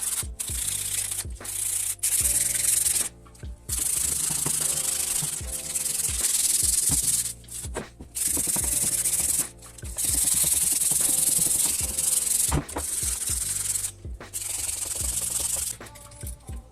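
Abrasive sanding of a bicycle part: a harsh scraping hiss in spells of a second or two, stopping briefly between them.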